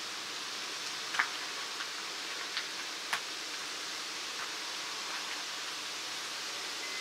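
Steady, even hiss with a few faint, short clicks, one about a second in and two more around two and a half to three seconds in.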